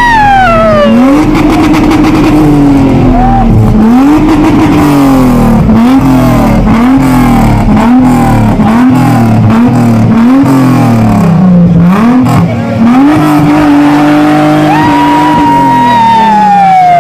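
Chrysler Crossfire's V6 engine being revved hard, the throttle blipped again and again in quick succession, then held at high revs for a couple of seconds before falling away near the end.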